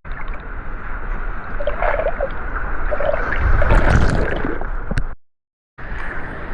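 Sea water rushing and gurgling around a camera in the surf. The sound cuts out completely for about half a second a little after five seconds in.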